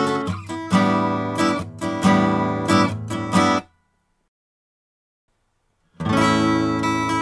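Strummed acoustic guitar recorded through a Dave Hill Designs Europa 1 microphone preamp set to medium slew rate with added even and odd harmonics. The playing cuts off about halfway through, there are about two seconds of dead silence, and then the strumming comes back through the same preamp at its extreme settings.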